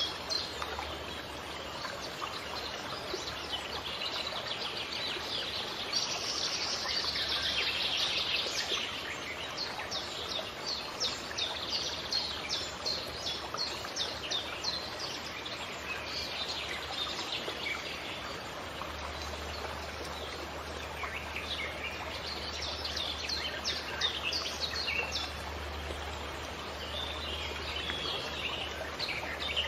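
Small birds chirping in quick runs of short high notes over the steady rush of a stream.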